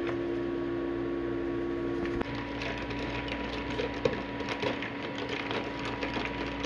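Ice and lemonade being stirred in a paper cup with a thin stirrer: light, quick clicks and rattles over room noise. At the start a steady machine hum with a pitched tone runs, stopping abruptly about two seconds in.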